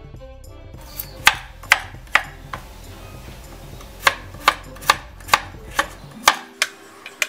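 Chef's knife slicing garlic cloves on a wooden cutting board: sharp knocks of the blade on the board, about two to three a second, in two runs with a pause of about a second and a half between them.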